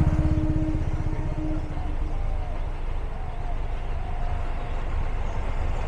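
A train passing over a level crossing, a heavy rumbling rush that is loudest at the start and eases off a little. A steady pitched tone dies away in the first two seconds.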